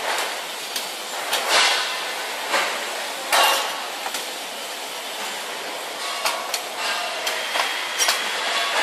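Steady workshop background noise with about a dozen irregular knocks and clanks, the loudest about one and a half and three and a half seconds in.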